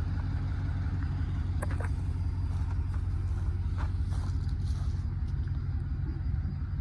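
Engine running with a steady, low rumble, with a few faint clicks over it.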